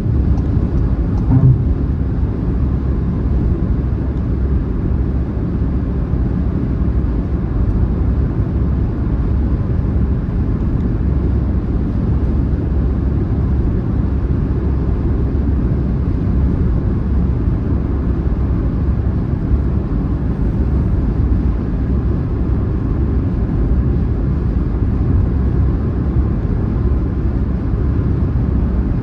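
Car travelling at highway speed: a steady, low rumble of road and tyre noise that stays the same throughout, with a brief low thump about a second and a half in.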